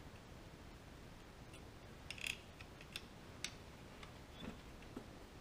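Light clicks and taps of small metal power-feed parts being handled and fitted by hand: a short cluster about two seconds in, then single ticks roughly every half second.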